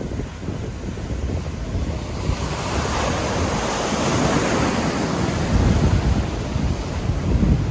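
Large ocean waves breaking, a rushing roar of surf that swells from about two seconds in and is loudest in the second half, over a deep rumble. Wind buffets the microphone.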